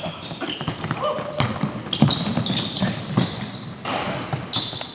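Basketball game sounds on a hardwood gym floor: the ball bouncing, and sneakers squeaking in short high chirps as players cut and defend, with occasional shouts from players.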